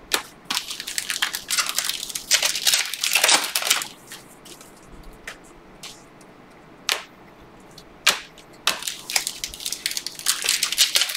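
Crinkling and rustling of a foil Panini Prizm basketball card pack and its cards being handled, in two spells of about four and two and a half seconds with a few single clicks between. Near the end the foil pack is worked open.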